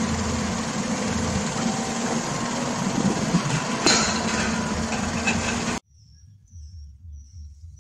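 A Jeep Renegade driving on pavement: steady engine and road noise with a low hum. The noise cuts off suddenly about six seconds in, leaving a faint background with a few high chirps.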